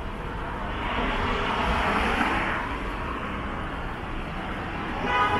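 A vehicle passing on a city street, its noise swelling and fading over a couple of seconds, with street background throughout. A short pitched sound comes near the end.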